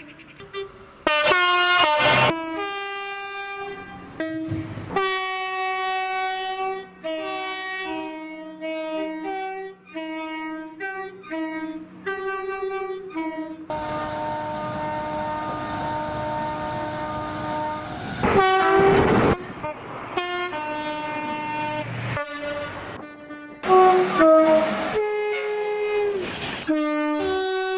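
British train horns sounding one after another: two-tone blasts alternating between a high and a low note, some short and some held. Around the middle one horn is held over a steady rushing noise, and a few short, much louder blasts come near the start, about two-thirds through and near the end.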